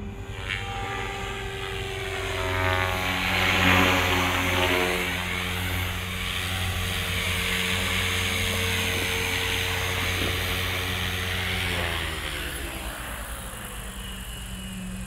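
Electric Beam E5 Archon RC helicopter's motor and rotor whine. It falls in pitch as the helicopter swoops in low and is loudest about four seconds in. It then holds steady while the helicopter hovers and sets down, and winds down in pitch about twelve seconds in as the rotor spools down after landing.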